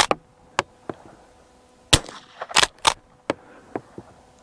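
Winchester 1890 slide-action rifle firing .22 WRF rounds. There is a sharp shot right at the start and another about two seconds in, each followed by a couple of quieter mechanical clacks as the action is cycled.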